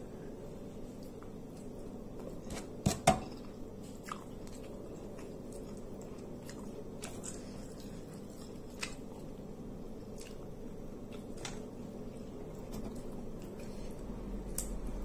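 A person eating with her fingers: small wet squishing and clicking as she picks at tongkol fish and rice and chews. Two sharp knocks stand out about three seconds in, over a steady low room hum.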